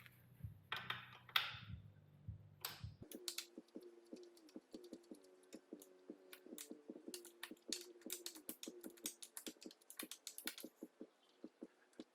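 Rapid, uneven metal clicking of a ratchet wrench turning a 12 mm chain adjuster bolt to slacken the drive chain, with a few louder knocks early. A faint steady hum sits under the clicking from about three seconds in.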